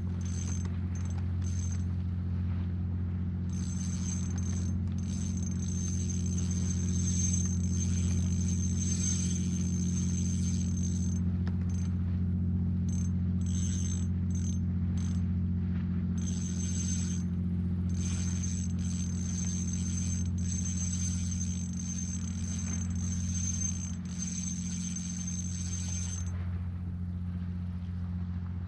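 Spinning fishing reel being cranked, a light mechanical whir, over a steady low hum that is the loudest sound throughout.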